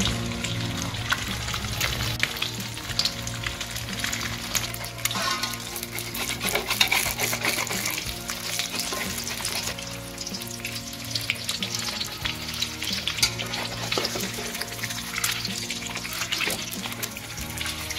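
Eggs frying in hot oil in a steel wok, sizzling steadily with lots of sharp crackles and pops, while a metal spatula scrapes under them against the pan.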